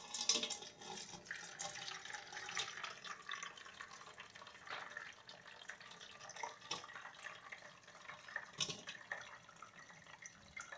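Water poured from a bowl splashing and trickling onto a perforated stainless-steel colander. Now and then a soaked lentil dumpling drops onto the steel.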